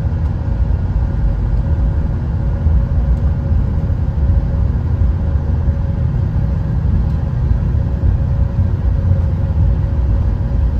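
Steady low rumble of a Caltrain passenger train running along the line, heard from inside the car, with a faint steady hum over it.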